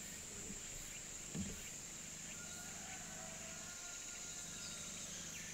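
A steady high-pitched drone of insects over a faint low hum, with one soft bump about a second and a half in.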